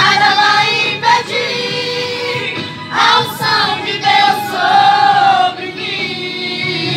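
Female voices singing a gospel hymn into microphones, with long held notes that bend up and down and other voices joining in.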